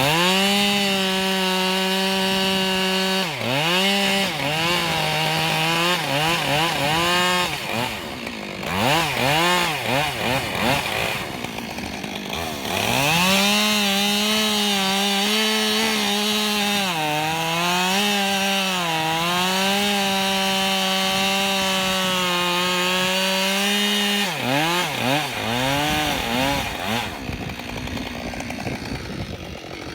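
Husqvarna 572 XP two-stroke chainsaw running at full throttle as it cuts ash logs, its pitch sagging as the chain loads up in the wood, with quick revs up and down between cuts. The engine note drops away near the end.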